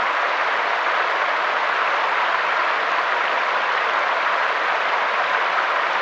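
Mountain stream flowing over rocks: a steady, even rush of water with no single splash standing out.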